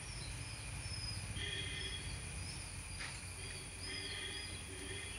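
Outdoor natural ambience: a steady low rumble under a constant thin high tone, with bursts of insect or bird chirping, the first about a second and a half in and the second near four seconds.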